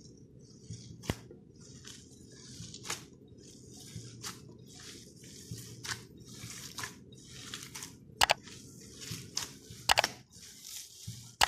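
Hands squeezing and kneading raw minced beef mixed with chopped onion and flour in a glass bowl: wet squishing and crunching in short patches, with a few sharp clicks.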